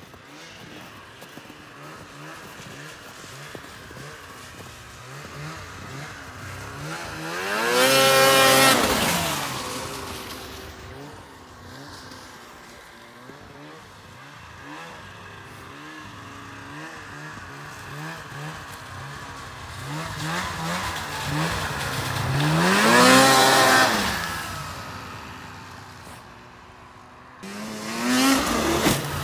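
Ski-Doo Renegade 600 snowmobile's two-stroke engine revving as the sled rides by. It passes close twice, rising in pitch and loudness as it comes and falling away after, about eight and twenty-three seconds in. A sudden burst of engine comes near the end.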